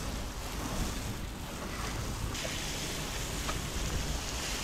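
Pressure-washer jet spraying against a sailboat's gel-coated cabin side and deck edge, a steady hiss of water, with wind rumbling on the microphone. A little after halfway the spray hiss gets brighter and louder.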